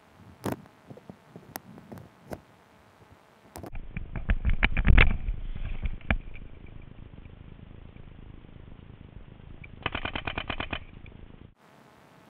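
Paintball markers firing: a few scattered single shots, then a fast volley about four to five seconds in, and a quick string of about ten shots near the end.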